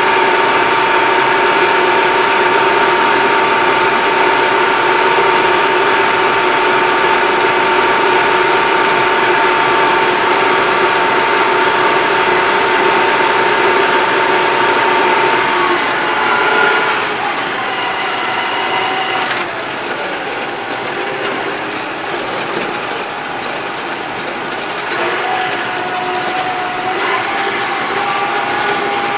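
Farm tractor driving on the road, heard from inside its cab: engine noise with a steady high transmission gear whine. About halfway through the tractor slows, the whine drops away and the sound gets a little quieter, then a lower steady whine comes back near the end as it speeds up again.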